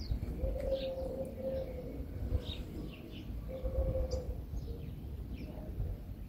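Small birds chirping in quick, short notes throughout, with a dove cooing low in stretches of about a second, over a low background rumble.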